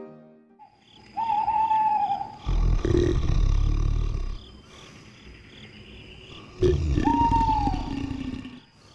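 Animal call played twice: a clear high call about a second long, each time followed by a loud, deep, rumbling roar. A faint high chirping pulses steadily behind.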